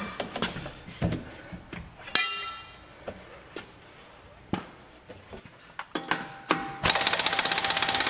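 Scattered clunks and knocks as a heavy truck dual wheel is rolled off its hub, with one ringing metallic clank about two seconds in. Near the end an air impact wrench starts hammering fast and steadily on the wheel nuts.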